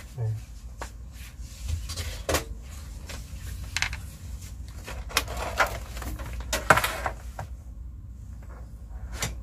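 Scattered clicks and knocks as cables are plugged into the back of a desktop computer and its case is handled, over a low steady hum.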